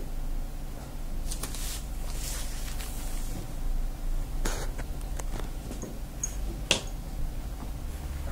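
A calligraphy ink brush working on paper: soft swishes of strokes and several sharp clicks, the loudest two about two seconds apart near the middle, over a steady low hum.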